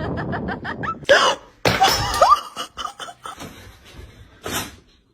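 A person laughing in quick, rapid bursts, followed about a second in by a few loud sudden noises.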